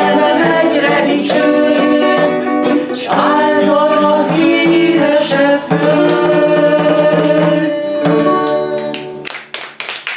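A man singing to his own Renaissance lute accompaniment, the lute's plucked strings under the voice; the singing stops about nine seconds in.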